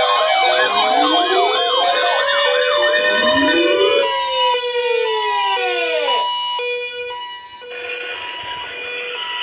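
Several electronic alarm sirens sound together for an Emergency Alert System weekly test, mixing fast yelps with slower wails. About four seconds in they wind down, falling in pitch, and steady alarm tones carry on, cutting in and out.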